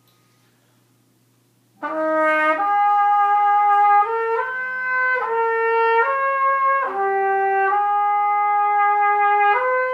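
Trumpet playing a slow tune of long held notes. It starts about two seconds in and steps from note to note.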